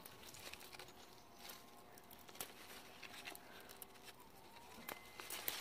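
Faint rustling and scattered light clicks of bean leaves and stems being handled as long beans are picked off the vine by hand.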